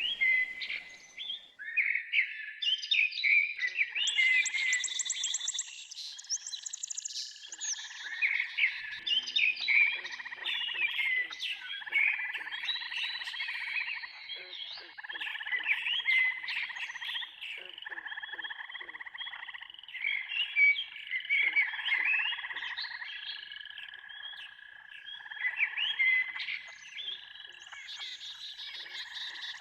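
Nature ambience of frogs croaking in a chorus, with many birds chirping and calling over them.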